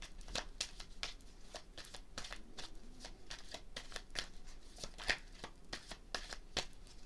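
A tarot deck being shuffled by hand: a quick, irregular run of card snaps and riffling clicks, with one louder snap about five seconds in.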